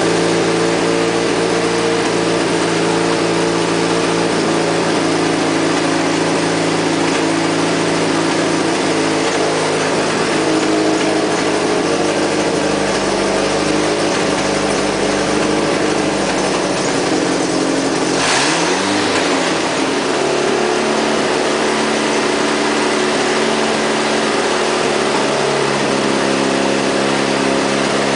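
A newly swapped-in 2.4-litre engine in a 1991 Jeep Wrangler running steadily. About two-thirds of the way in there is a short hiss, and the engine note shifts.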